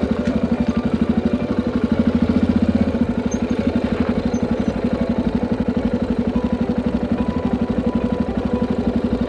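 Motorcycle engine idling with a steady, even pulse while the bike stands still.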